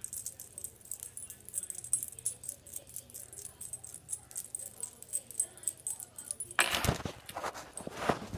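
Something small shaken rapidly by hand, making a fast jingling rattle of tiny clicks. About six and a half seconds in, louder rubbing handling noise takes over.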